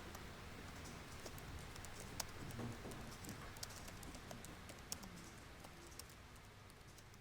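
Office ambience: scattered clicks of computer keyboard typing over a steady, faint background room noise, getting slightly quieter toward the end.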